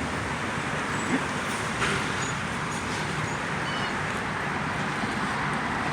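Steady rushing outdoor background noise, with a few faint short high chirps a couple of seconds in.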